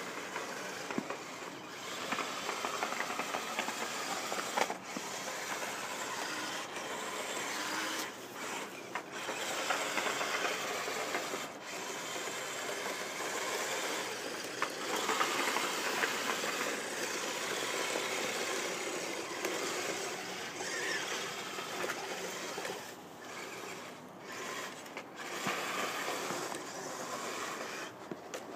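Radio-controlled model snow groomers running, their electric drive motors, gearboxes and tracks making a steady grinding hiss as they push through snow, broken by several brief gaps.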